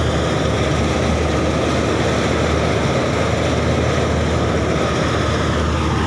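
Kuldeep 932 combine harvester working close by while cutting a crop, its diesel engine and harvesting machinery running with a loud, steady drone.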